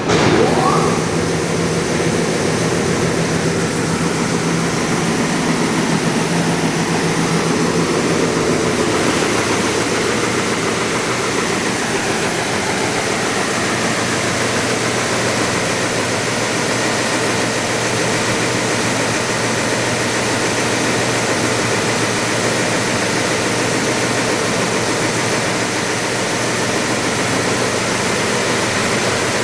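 Timesavers 137-2 HD two-head wide belt sander starting up and running: a motor spins up with a rising whine in the first second, then the 30 hp and 20 hp sanding heads run steadily with a constant hum and rushing noise. A low hum drops away about nine seconds in.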